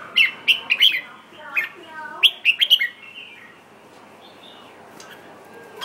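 Red-whiskered bulbul singing: two quick phrases of short, sharp whistled notes within the first three seconds.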